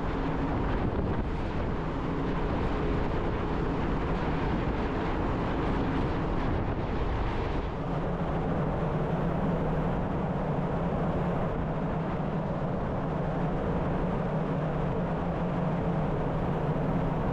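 Steady drone of a large car ferry's machinery heard on the open deck at sea, with wind on the microphone; a low hum grows stronger about halfway through.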